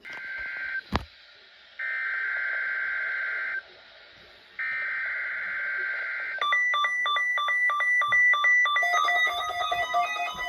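Three bursts of Emergency Alert System SAME header data, a buzzy warbling screech each lasting one to two seconds with about a second's gap between, marking the start of a weather radio required weekly test. About six seconds in, a chiming electronic tune of short repeated notes starts.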